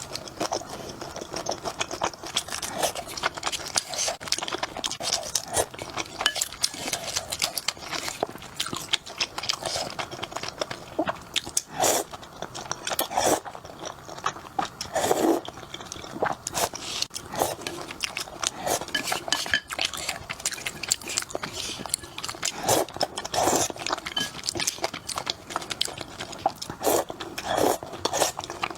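Close-up eating sounds: a person chewing and crunching food, with dense, irregular wet mouth clicks and a louder crunch every second or two.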